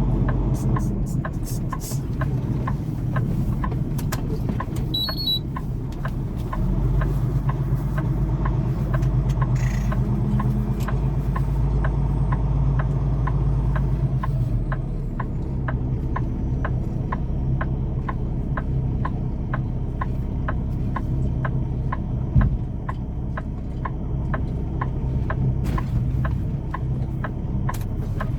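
Semi-truck diesel engine running while the tractor maneuvers to couple a trailer, its pitch and load shifting about six seconds in. A regular light clicking runs alongside.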